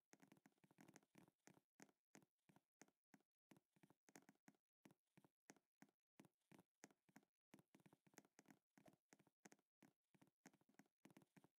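Faint computer keyboard typing: irregular single keystrokes, about three a second.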